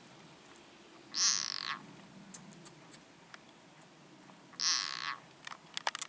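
A frog caught in a grass snake's jaws gives two short distress calls about three seconds apart, each lasting about half a second. A few light clicks follow near the end.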